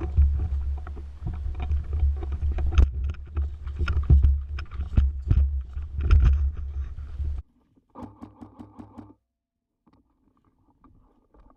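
Heavy rumbling noise on the camera's microphone with many crackles and crunches, like a player moving through brush and leaf litter. It cuts off abruptly about seven and a half seconds in, leaving only faint, brief sounds.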